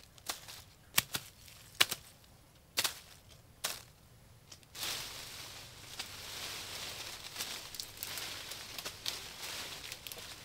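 Rambutan branches being handled during hand-picking: a few sharp snaps of stems in the first four seconds, then steady rustling of leaves.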